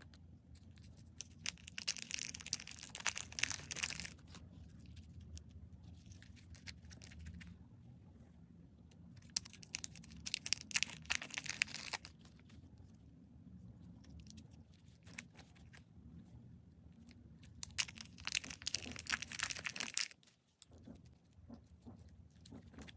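Slime being pressed and squeezed by hand, making three spells of dense crackling and clicking, each two to three seconds long. A low steady hum runs underneath.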